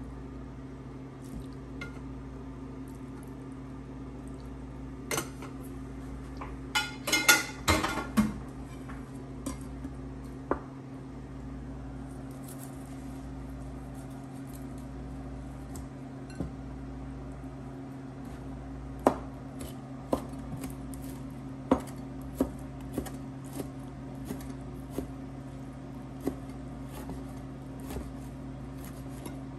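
Metal pan and utensils clattering for a couple of seconds about six seconds in, then a knife knocking against a plastic cutting board at about one stroke a second while slicing pan-fried rib steak. A steady low hum runs underneath.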